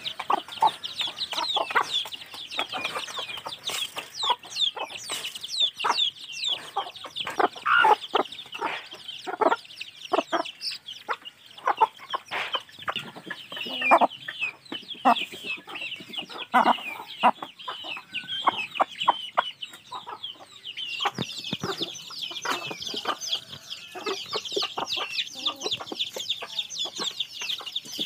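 Ayam kampung chickens: month-old chicks peeping continuously in quick, high, falling cheeps, over hens clucking and many short, sharp knocks.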